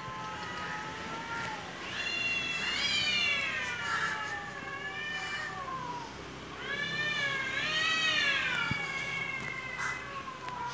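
Two cats yowling at each other in an aggressive standoff: long, drawn-out wails that waver and rise and fall in pitch, swelling loudest a couple of seconds in and again past the middle. It is the threat caterwauling of cats squaring off before a fight.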